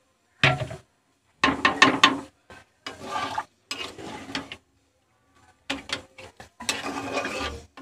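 Metal spatula scraping and knocking against a kadai while stirring chicken and potatoes in a watery curry, in several bursts of rapid scrapes and clicks with short pauses between.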